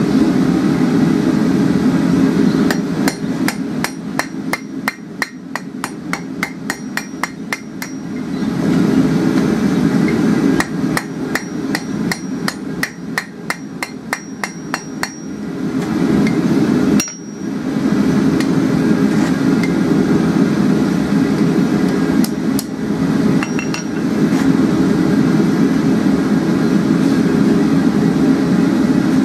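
Blacksmith's hammer striking steel on an anvil, two quick runs of ringing blows at about three a second with a few more strikes later, over the steady roar of a propane gas forge burner.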